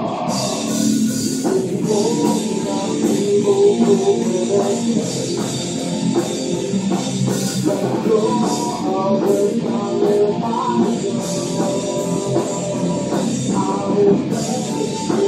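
Rock band rehearsing, with guitar and drum kit playing a song continuously.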